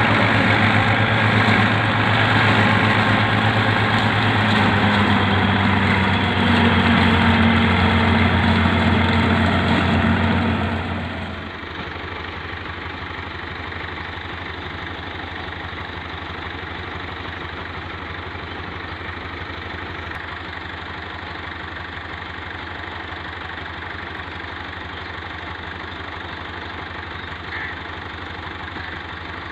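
Tractor-mounted silage chopper running, driven off the tractor with the engine under load, as it cuts and blows chopped fodder into a trailer. About eleven seconds in it gives way to a quieter, steady tractor engine idling.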